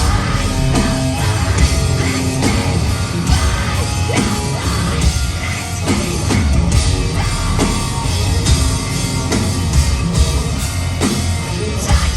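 Loud live rock band playing, with distorted guitars, bass and drum kit, heard through an audience recording in a concert hall.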